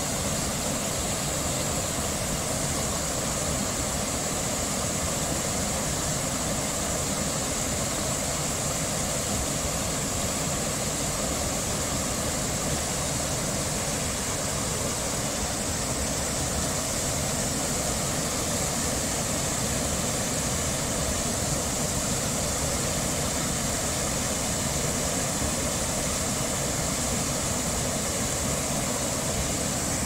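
Small waterfall pouring over a ledge into a pool: a steady, even rush of falling water.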